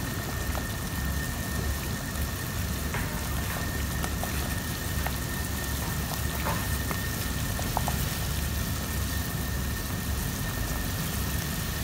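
Pot of fish soup at a rolling boil: steady bubbling with scattered small pops over a low steady rumble, plus a faint steady high tone.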